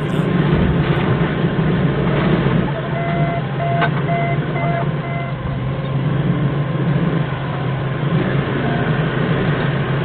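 Diesel forklift engine running steadily at close range. About three seconds in, a reversing alarm beeps five times in quick succession.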